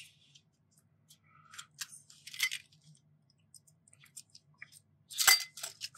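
Small sharp clicks and scrapes of a die-cast toy car being pried apart with a small screwdriver, its rivets drilled out, as the base comes away from the body; a louder clatter of clicks a little after five seconds.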